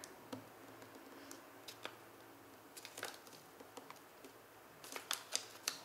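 Faint rustling and small ticks of a sheet of paper being handled and pressed flat by fingers while a fold is lined up, with a quick cluster of sharper crackles near the end.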